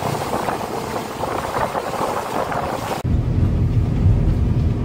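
Wind and water rushing past a small boat under way. About three seconds in it cuts abruptly to a steady, deeper drone from the boat's engine, with the wake churning.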